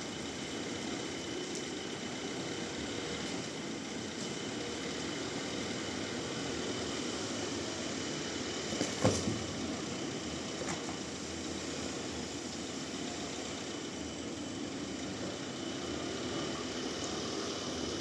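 Band sawmill's machinery running steadily, with one sharp knock about nine seconds in.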